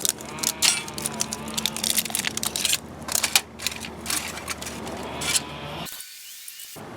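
Foil blister pack of an Esbit solid-fuel tablet being pried and torn open, giving irregular crinkling, crackling and clicks.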